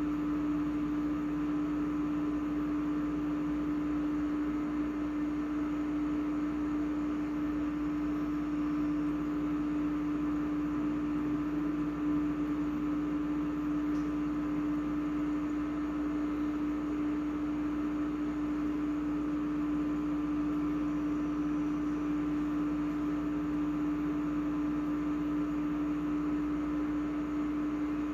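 A steady machine hum with one strong, constant pitch over a faint hiss, unchanging throughout.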